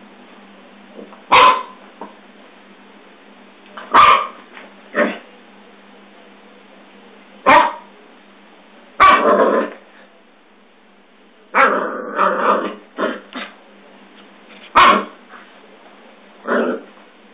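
Scottish terrier puppy barking in short yaps, singly or in pairs every second or two, with a quicker run of barks a little past the middle.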